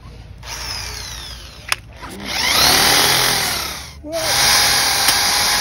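Handheld electric drill with a thin bit running and boring into a wooden stump in three stretches, the first quieter, with its motor whine rising and falling as it speeds up and slows.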